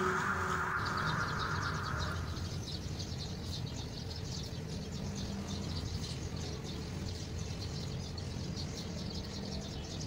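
Background music fades out over the first two seconds, leaving faint steady background noise with rapid high chirping throughout.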